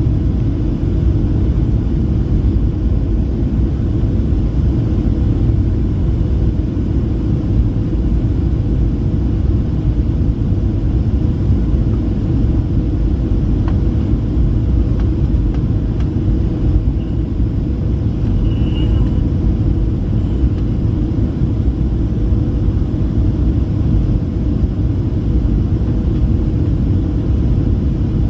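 Steady low rumble inside the cabin of a Boeing 737-700 on final approach, from its CFM56-7B turbofan engines and air rushing past the fuselage, heard from a window seat over the wing.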